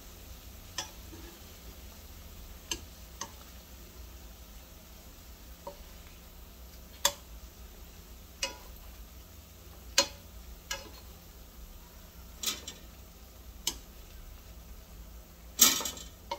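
Metal tongs clicking and tapping against a nonstick frying pan as chips are turned in shallow hot oil, with a faint sizzle underneath. The taps come irregularly, about a dozen in all, with a louder clatter near the end as chips are lifted out of the pan.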